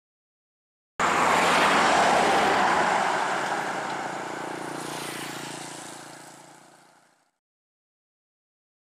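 Road vehicle noise, a broad rushing sound with a faint steady engine hum beneath. It cuts in abruptly about a second in and fades out gradually over the next six seconds.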